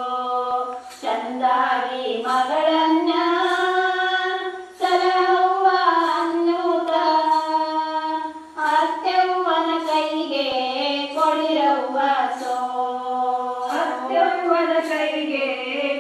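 Women's voices singing a Kannada folk wedding song (shobana pada) together in unison, without instruments, in long drawn-out held notes with short pauses for breath.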